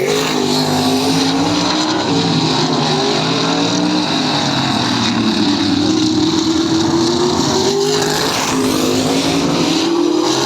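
Tin-top race car engines running loud and hard, the pitch climbing and falling several times as they rev and change gear.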